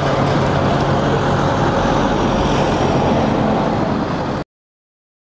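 Steady low engine hum and rumble of road traffic, cutting off abruptly about four and a half seconds in.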